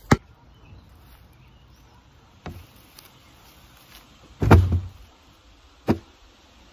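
A bag of school stuff tipped into an empty plastic wheelie bin, landing with a thud about four and a half seconds in. A sharp click comes right at the start, with smaller knocks against the bin before and after the drop.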